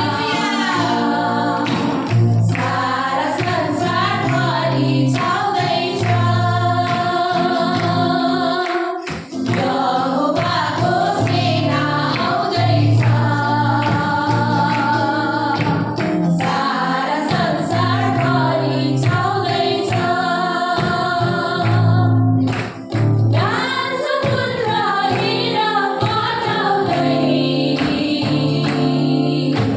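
A group of women singing a Nepali Christian worship song together over a low, steady bass accompaniment, with short breaks between phrases about nine and twenty-two seconds in.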